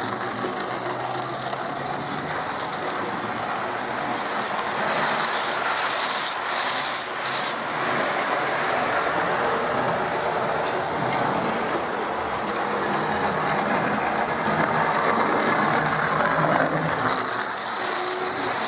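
Hornby Railroad GWR 101 class 0-4-0 tank engine model running steadily along the track, hauling a train of six coaches in a pulling test.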